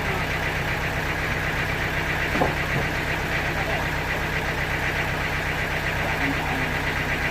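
Sawmill machinery running steadily with a low hum, with one short knock about two and a half seconds in.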